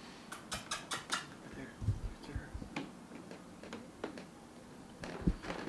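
A quick run of light, sharp clicks in the first second or so, then scattered taps and a few soft thumps: a cat's claws and paws on a parquet wood floor as it walks.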